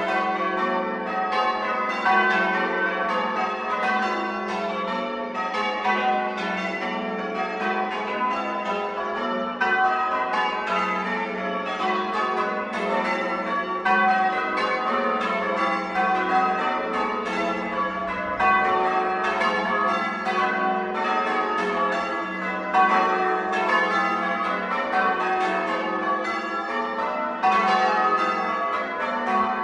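A ring of church bells rung in changes: a continuous, even stream of bell strikes, several a second, with each bell's tone ringing on under the next.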